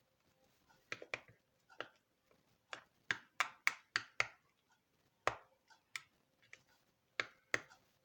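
A stirring utensil knocking and clicking against the side of a bowl as glue and shaving foam are mixed for slime, in irregular sharp taps, some in quick pairs.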